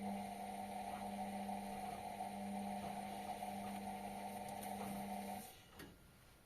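Indesit washing machine humming steadily for about five seconds during its 60-degree cotton cycle, then cutting off with a click near the end.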